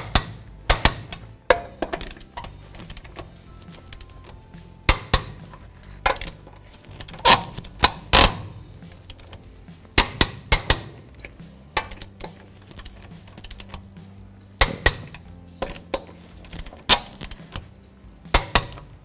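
Torque wrench and socket on wheel lug nuts: a string of sharp metallic clicks and clinks, often two close together, as the lug nuts are tightened to 150 foot-pounds in a star pattern, the wrench clicking as each nut reaches torque.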